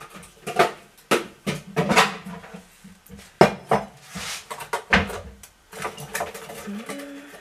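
Kitchen dishes and utensils clattering as a large bowl is fetched and handled, with irregular clinks and knocks; the two sharpest knocks come about three and a half and five seconds in.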